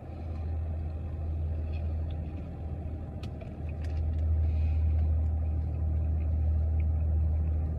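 A steady low rumble that grows louder about halfway through, with a few faint sharp clicks near the middle.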